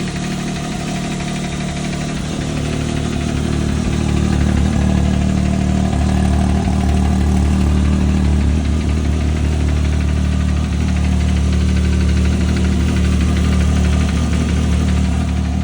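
Can-Am Maverick X3 XMR Turbo RR's turbocharged three-cylinder engine running steadily with a ticking noise whose cause the owner does not know. It gets a little louder about four seconds in.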